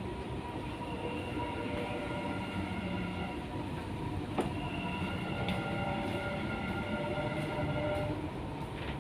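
Dubai Metro train running, heard from inside the carriage: a steady rumble of the running gear with several steady tones over it, and a single sharp click about four and a half seconds in.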